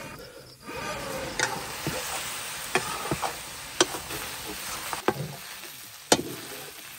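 Chunks of meat sizzling as they stir-fry in a large metal wok over a wood fire. A ladle stirs them and knocks and scrapes against the pan about five times.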